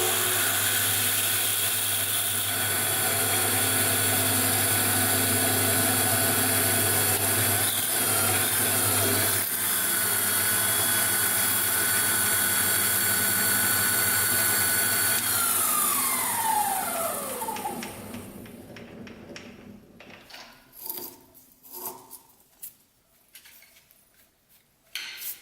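Drill press running steadily with a constant whine, which drops slightly in pitch for a moment about eight seconds in. About fifteen seconds in it is switched off and winds down, its whine falling in pitch as the spindle slows. A few light clicks and knocks follow.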